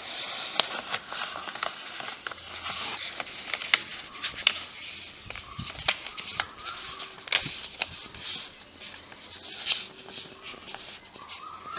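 A sheet of paper being handled and folded: a steady crinkling with many sharp creasing clicks.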